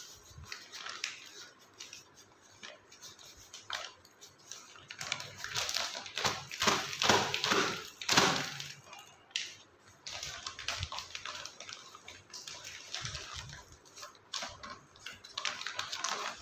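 Black plastic nursery grow bag crinkling and rustling as it is pulled and peeled off a plant's root ball. The crackling is busiest and loudest in the middle, when the bag is lifted and shaken, then goes on as lighter rustling.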